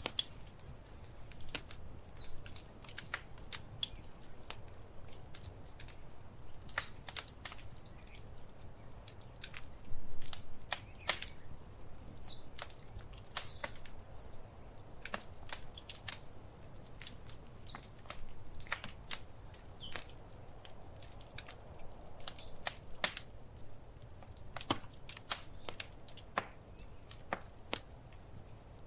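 Wood fire in a fireplace crackling: irregular sharp pops and snaps over a low steady rumble, with a brief louder flurry of crackles about ten seconds in.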